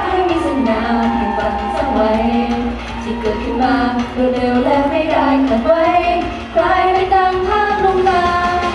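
Idol-pop song with a female singing voice over a full backing track, played loud through a stage PA system.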